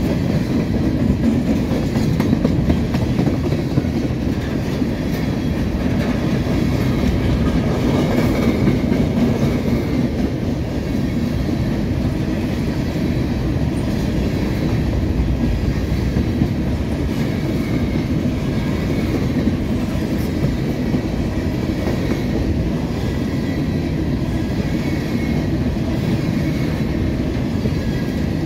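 Norfolk Southern covered hopper cars rolling past at close range: a steady, loud rumble of the freight train with the clickety-clack of wheels over the rails.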